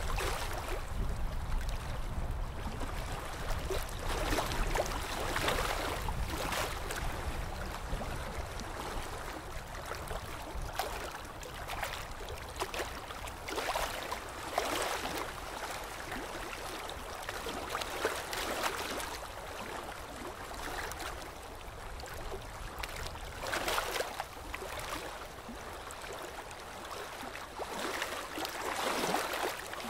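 Water washing and splashing beside a ship, in uneven swells every couple of seconds, over a low rumble that fades away during the first third.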